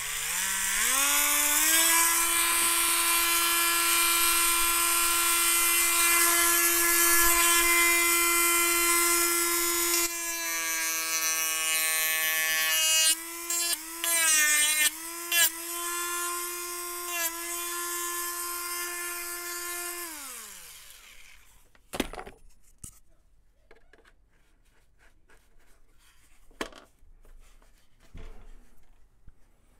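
Proxxon rotary tool with a sanding drum spinning up to a steady high whine. From about ten seconds in, its pitch drops and wavers as the drum sands the edges of a plywood plate. It winds down with a falling pitch about twenty seconds in, followed by a few knocks and handling sounds.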